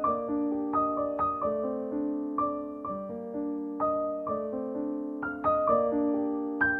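Solo piano background music: a gentle melody of struck notes, a couple each second, over held lower notes.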